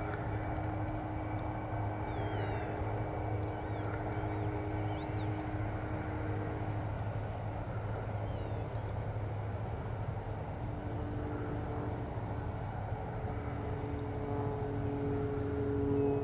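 Combine harvester and the tractor beside it working a wheat field, a steady low engine drone with a machinery hum whose pitch shifts a little about halfway through. Small birds chirp a few times early on and again near the end.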